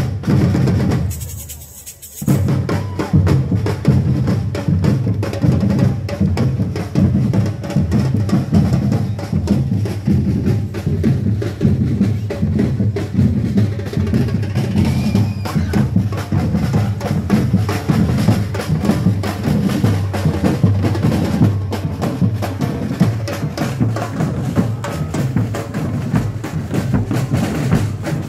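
A bombo drum group, many big bass drums struck with sticks, playing a fast, dense rhythm together. The drumming drops away briefly about a second in, then comes back at full strength.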